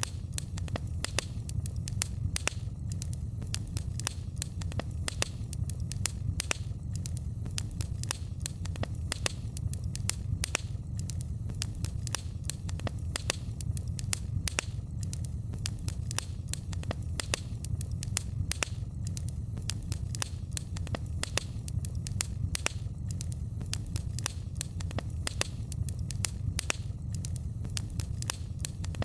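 Wood fire in a fireplace crackling, with frequent irregular sharp pops and snaps over a steady low rumble.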